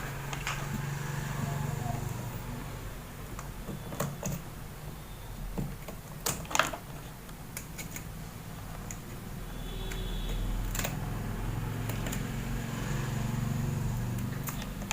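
Scattered small clicks and taps from handling the battery sprayer's plastic switch housing and wiring, over a steady low hum.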